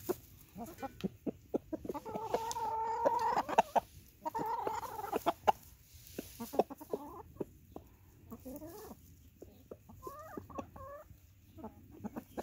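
Chickens, a blue-laced red Wyandotte rooster and his hens, clucking and calling over shared food. A long held call comes about two seconds in and another shortly after, then short clucks that rise and fall near the end, with sharp clicks in between.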